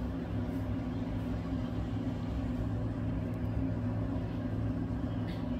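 Steady low mechanical hum with a few fixed low tones, unchanging throughout.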